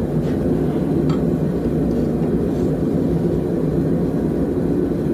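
Small forge running while metal heats in it, a steady rushing noise, with a couple of faint ticks in the first second or so.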